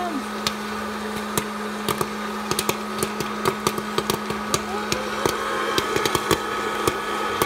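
Hot-air popcorn popper running, its fan giving a steady hum and rush of air, while kernels pop in many scattered, irregular sharp cracks.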